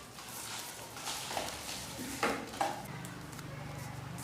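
Paper being folded and creased by hand: a series of short crinkles and rustles, the sharpest about two seconds in. A low steady hum comes in near the end.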